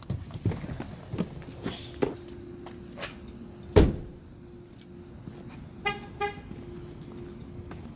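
Scattered clicks and a heavy thud about four seconds in, then a vehicle horn chirping twice in quick succession about two seconds later, over a steady low hum.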